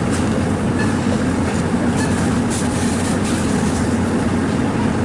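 A steady low drone with a constant hum and an even noisy rush that holds level throughout, with a few faint ticks about halfway through.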